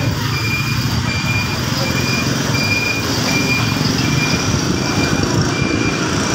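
A high beep repeating about one and a half times a second, like a vehicle's reversing alarm, over a steady low rumble.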